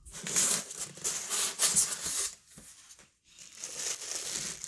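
Packaging handled in a cardboard box: paper and plastic wrap rustling and crinkling, in two stretches with a short lull about two and a half seconds in.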